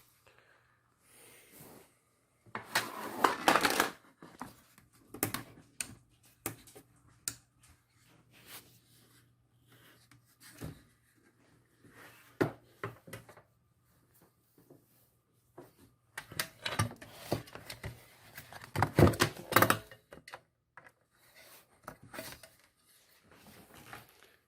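Handling noises while setting up an LED grow light: scattered clicks and knocks with rustling, in two busier stretches about three seconds in and from about sixteen to twenty seconds in.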